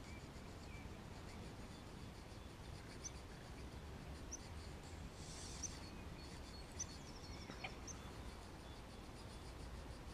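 Faint outdoor background: a low steady rumble of wind, a few short high bird chirps scattered through, and a faint fast ticking from a spinning reel being wound in a steady retrieve.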